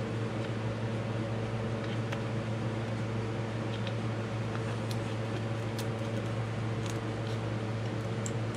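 Steady background hum, with a few faint clicks as a 3D-printed plastic cover is pressed and fitted onto an electric bike mid-drive motor.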